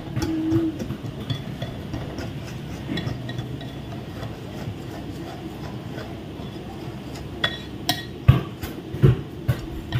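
A spoon stirring thick flour batter in a bowl, a soft steady scraping, with a few sharp knocks of the utensil against the bowl near the end.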